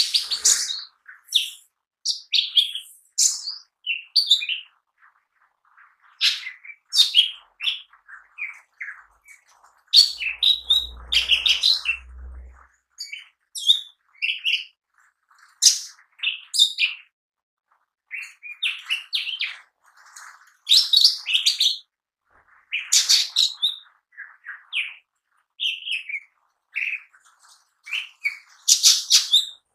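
Lesser green leafbird (cucak ijo mini) singing continuously: a rapid, varied run of high chirps and whistled notes in bursts, with short pauses between phrases.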